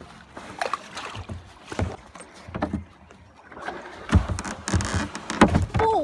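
A kayak paddle being handled against a boat ramp's timber edge, giving irregular knocks and scrapes. A short falling vocal sound comes near the end.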